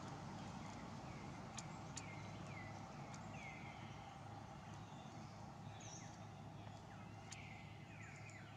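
Faint high animal chirps, each sliding down in pitch, repeated about once a second over a steady background hiss, with a few sharp clicks among them.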